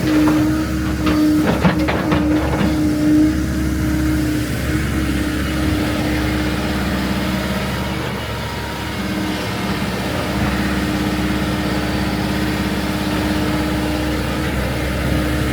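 Diesel engine of heavy excavation equipment running steadily, with a few knocks about one to three seconds in.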